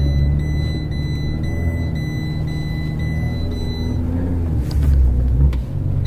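Fiat 500 Abarth's 1.4-litre turbocharged four-cylinder and its snow tyres rumbling, heard from inside the cabin while driving through deep snow, with a brief surge about five seconds in. A high seatbelt-warning tone sounds in the background and stops about four seconds in.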